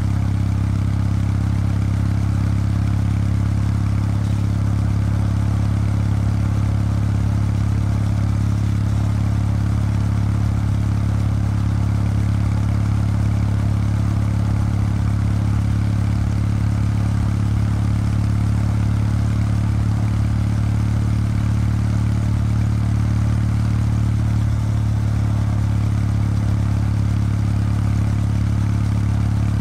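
Kawasaki W800 Street's air-cooled parallel-twin engine running at a steady cruise through its stock exhaust: a low, even exhaust note with hardly any change in engine speed.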